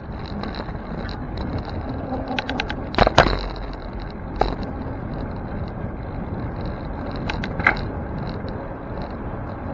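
Bicycle riding along a city street: steady wind and road noise, with sharp knocks and rattles about three seconds in and twice more later as the bike goes over bumps.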